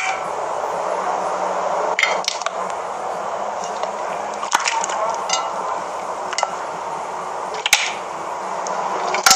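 A hand pressing and kneading fluffy slime in a glass bowl: a steady crackling hiss, with a few sharper clicks.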